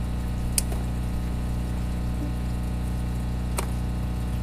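Two sharp snips of hand shears cutting tomatoes off the vine, about three seconds apart, over a steady low hum.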